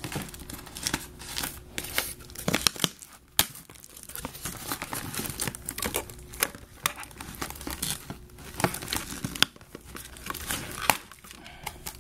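Toy packaging being crinkled and torn open by hand, an irregular run of crackles with sharp clicks and snaps.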